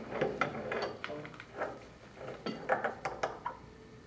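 Open-end wrench clinking against the metal seat of a control valve's trim as the seat is loosened and unscrewed: a series of short, sharp metallic clinks and taps.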